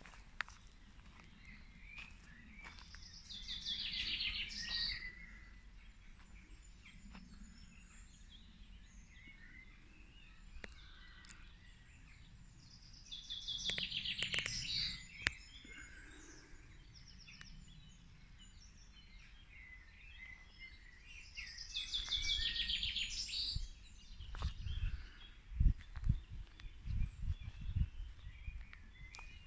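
A songbird singing three times, each song a quick run of repeated notes lasting about two seconds, with other birds calling faintly between. Near the end, a few low thumps.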